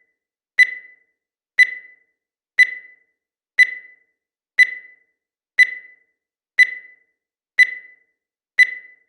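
Digital countdown timer beeping once a second, marking each second as the count runs down. Nine short, high-pitched beeps, each starting sharply and fading quickly.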